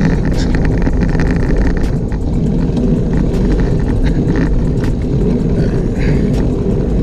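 Steady low rumble of wind buffeting the camera's microphone, mixed with tyre noise from a road bike rolling on asphalt, with occasional faint ticks.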